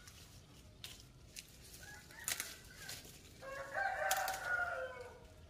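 A rooster crowing once, a single call about a second and a half long that starts about three and a half seconds in and drops away at its end. A couple of sharp clicks sound a little before and during it.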